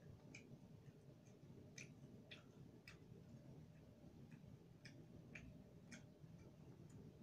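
Near silence with faint, irregular small clicks of a person eating by hand, chewing crispy pork and rice.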